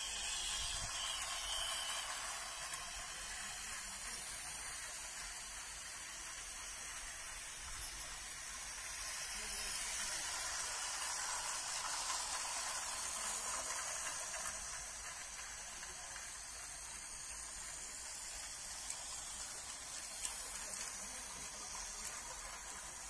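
Toy train running on plastic track, a steady whirring hiss and rattle that grows louder as it passes close, about a second in and again from about ten to fourteen seconds in.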